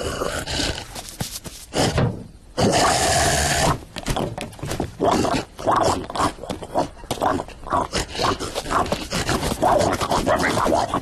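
Cartoon animal vocal effects: a string of short roars and grunts, with a louder, harsher stretch about three seconds in.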